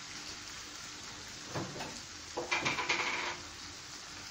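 Chicken pieces frying in a pan with a steady sizzle. A little past halfway comes a short run of clinks and knocks.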